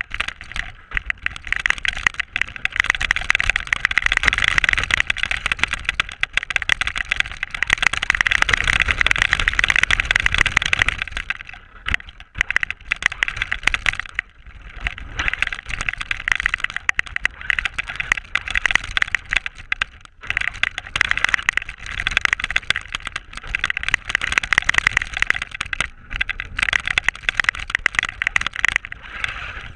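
Onboard sound of a Traxxas RC car driving through snow: the motor and drivetrain whine with a rough, choppy edge that rises and falls with the throttle. It eases off briefly about twelve, fifteen and twenty seconds in.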